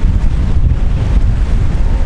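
Wind buffeting the microphone: a loud, uneven low rumble that rises and falls in quick gusts.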